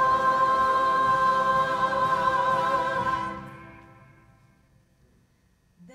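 A church choir holds a long final chord with vibrato. It dies away from about three seconds in to near silence.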